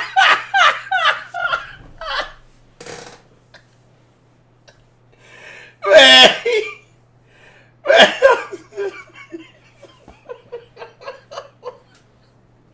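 A man laughing hard in helpless bouts: a quick run of laugh pulses at first, a loud burst of laughter about six seconds in and another about two seconds later, trailing off into short, fading chuckles.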